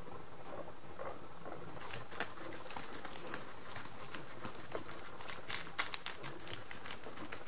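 Guinea pigs biting and chewing a romaine lettuce leaf held out in a hand: irregular crisp crunches starting about two seconds in and growing louder toward the end.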